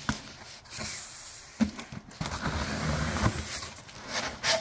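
A utility knife slitting the packing tape along the top seam of a cardboard box, a scratchy cutting noise lasting about two seconds in the second half, with a few sharp clicks and knocks from handling the box.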